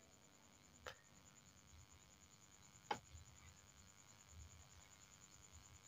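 Near silence: faint room tone with a thin steady high whine, broken by two faint clicks about two seconds apart, the second louder.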